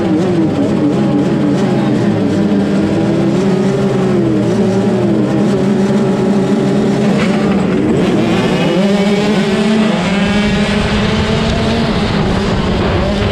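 A pack of 65cc two-stroke motocross bikes revving at the start gate, the engines wavering up and down while held. About seven seconds in the gate drops and the bikes accelerate away together, their engines rising in pitch through the gears.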